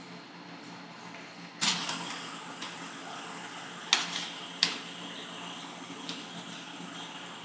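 Metal spatulas on a rolled ice cream cold plate: a sudden scrape about a second and a half in, then a steady scraping hiss with two sharp clacks a few seconds later.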